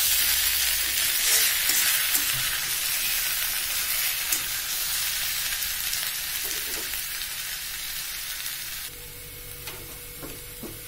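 Raw banana pieces in masala sizzling in hot oil in a kadai while being stirred with a spatula. The sizzle slowly weakens and drops off sharply near the end.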